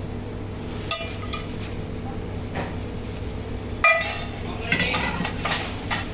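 Metal utensils and dishes clinking and clattering: a few sharp ringing clinks, the loudest about four seconds in, then a quick run of clatters near the end, over a steady low hum.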